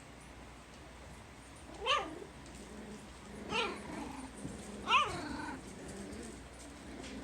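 Six-week-old Puggle puppies crying: three short, high, rising-and-falling cries about a second and a half apart, with quieter low sounds between them.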